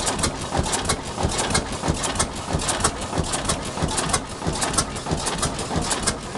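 1927 Atlas Imperial three-cylinder diesel tug boat engine running, with a fast, even clatter of sharp clicks from its valve gear over the low beat of the engine.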